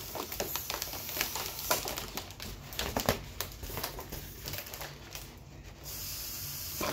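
Foil heart balloons crinkling and crackling as they are handled and squeezed. Near the end a steady breathy rush as air is blown into one through a straw.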